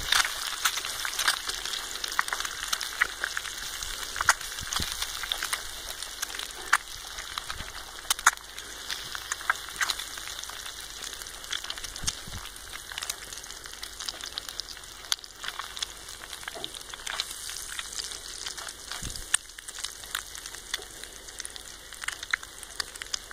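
Goose eggs sizzling as they scramble in a hot cast iron pan over a rocket stove, a steady hiss with frequent sharp pops and crackles.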